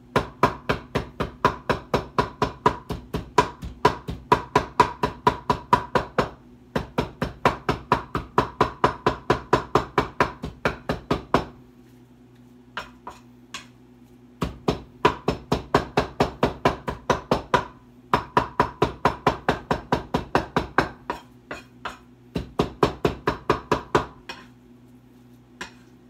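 A large kitchen knife chopping raw meat on a wooden cutting board, striking in rapid, even runs of four or five strokes a second. The runs break off for short pauses, with a few single chops in the longest pause about halfway through.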